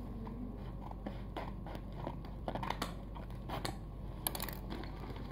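Scissors snipping open a plastic courier package: a run of irregular sharp snips and crinkles of the plastic.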